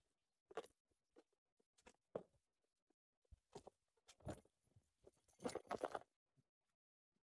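Faint, scattered rustles and light knocks, short and irregular, with a quick cluster of them about five to six seconds in.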